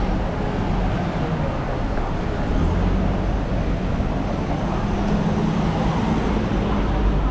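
Street traffic noise, steady throughout, with a vehicle engine's low hum joining about two and a half seconds in.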